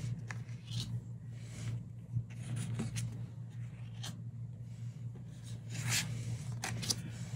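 Tarot and oracle cards being handled and slid across a tabletop: about half a dozen short, soft brushing scrapes, over a steady low hum.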